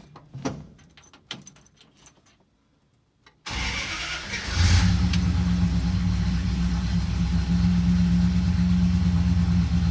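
A few light clicks, then about three and a half seconds in the 318 poly V8 cranks on the starter for about a second, catches, and settles into a steady idle. This is a cold start.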